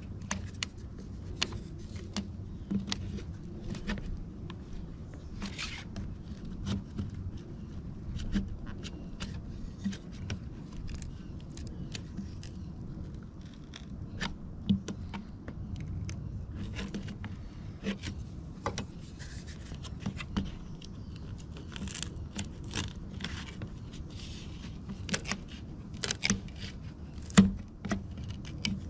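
Plastic trim removal tools scraping and clicking against a light housing as it is pried off a painted truck cap, the adhesive tape under it slowly giving way. The sound is an irregular run of short scrapes and clicks, with a few louder clicks near the end.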